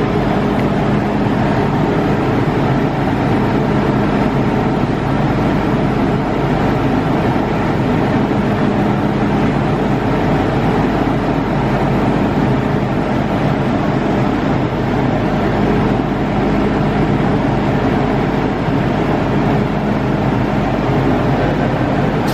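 MTR Tsuen Wan Line electric train: a steady, loud rumble with a faint low hum.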